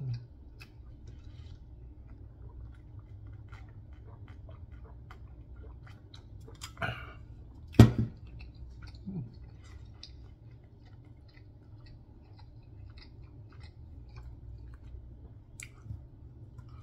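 A person chewing food close to the microphone, with small mouth clicks throughout. A sharp knock about halfway through is the loudest sound, with a smaller one just before it.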